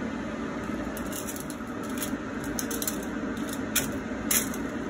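Silicone spatula spreading and scraping garlic oyster sauce over raw shrimp in a foil-lined baking pan: a string of short scrapes and rustles against the foil, over a steady low hum.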